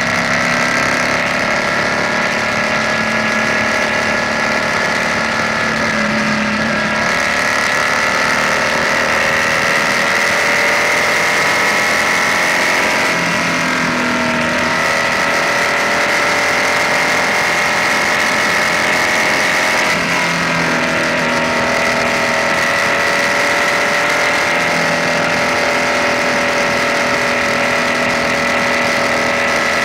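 BMW R nineT's air/oil-cooled boxer twin running at cruising speed. Its pitch dips and recovers a few times as the throttle changes, over steady road and wind noise.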